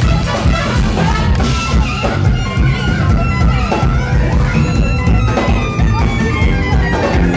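Live jazz-fusion band playing loud: electric guitars, electric bass and drum kit, with saxophone and trumpet among them. Recorded right next to the stage, so the sound is rough, with a heavy low end.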